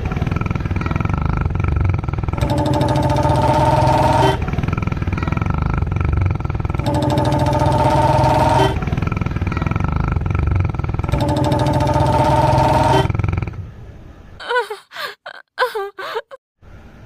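A dog snoring loudly through its nose: a continuous low rumble with three long, rattling snores about four and a half seconds apart, sounding much like a Royal Enfield Bullet motorcycle running. The snoring stops about three-quarters of the way through.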